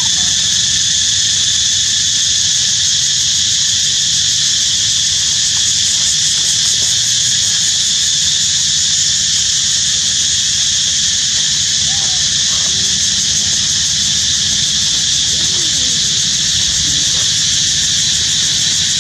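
Steady, loud, high-pitched insect chorus droning without a break over a low steady hum. A few faint short squeals from young macaques come around the middle and later on.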